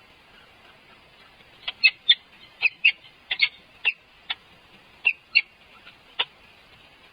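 Bird chirps: about a dozen short, sharp calls in uneven pairs and singles over several seconds, above a faint steady hiss.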